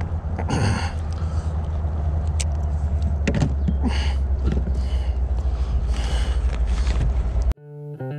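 Steady low rumble of wind buffeting the camera microphone, with a few short scraping and rustling noises as a caught bass is handled in a plastic kayak. Near the end the rumble cuts off suddenly and music with a bass guitar starts.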